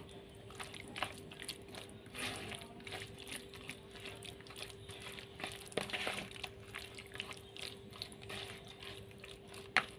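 Prawns being stirred in a thick egg-and-flour batter with a plastic spoon: wet squelching, with irregular clicks and scrapes of the spoon against the bowl.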